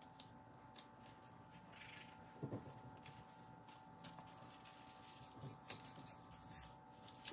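Faint crackling and rustling of a sheet of paper being folded and handled, with one soft knock about two and a half seconds in.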